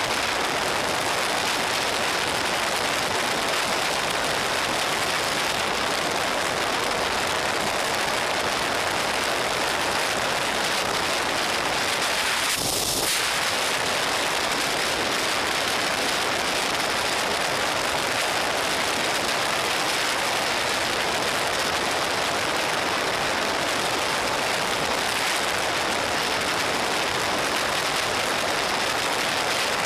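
Steady rush of wind noise over a motorcycle-mounted camera's microphone at highway speed, with a brief hissier moment near the middle.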